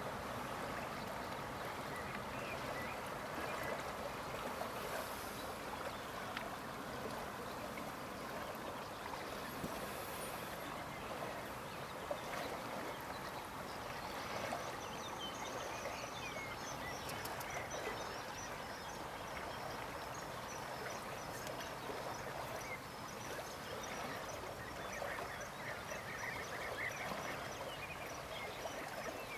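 Steady outdoor background noise, an even hiss-like wash, with faint high chirps and ticks joining in from about halfway through.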